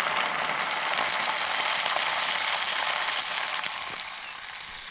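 Egg frying in a hot pan: a loud, steady sizzle that eases off about four seconds in.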